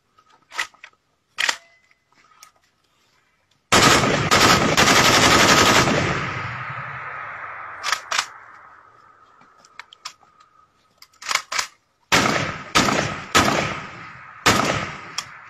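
Automatic rifles fired into the air: a couple of single shots, then about four seconds in a long burst of automatic fire lasting some two seconds, its echo dying away slowly. Scattered single shots and short bursts follow through the second half.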